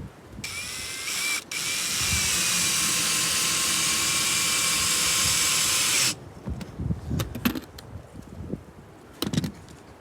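Power drill driving screws into a wooden doghouse roof: a short burst, a brief stop, then a steady run of about five seconds with a whine that drops slightly just before it stops. Scattered clicks and knocks follow.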